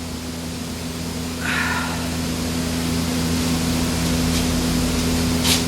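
Steady hum and hiss of a running fan, slowly growing louder, with a faint brief scrape about a second and a half in and a sharp click near the end.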